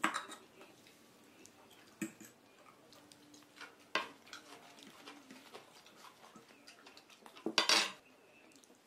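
Metal fork clinking and scraping against a baking dish while scooping up potato gnocchi, with a few separate clinks and a louder quick run of clinks near the end.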